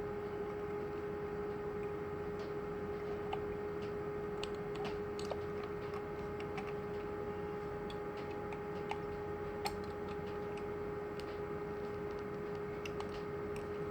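Small scattered clicks and ticks of a screwdriver tip working inside a door lock, turning the tailpiece slot where the key cylinder was removed, over a steady faint hum.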